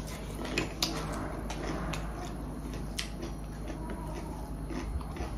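A person chewing food with wet mouth sounds, and small irregular clicks scattered throughout.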